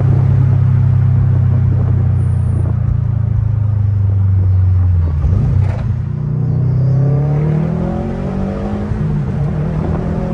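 2021 Subaru WRX STI's turbocharged 2.5-litre flat-four running through a Tomei aftermarket exhaust: a steady low drone while cruising, then about halfway through the pitch briefly drops and climbs steadily as the car accelerates.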